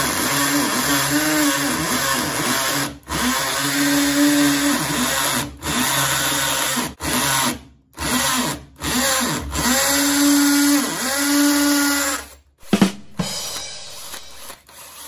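Bosch GSB 180-LI 18 V cordless hammer drill boring a pilot hole into a cement wall with a masonry bit. It runs in several bursts with short stops between them, its motor pitch dipping and rising under load. The drilling stops about 12 seconds in.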